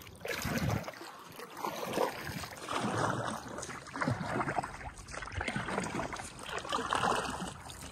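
Kayak paddles dipping and pulling through lake water, splashing and swishing along an inflatable kayak's hull in repeated swells about a second apart.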